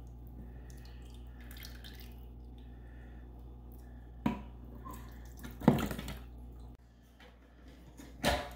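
Chunky cooked pumpkin soup being spooned from a ceramic bowl into a plastic blender jar: soft wet plops and scraping, with a few sharp clinks of the metal spoon against the jar and bowl, the loudest a little past halfway.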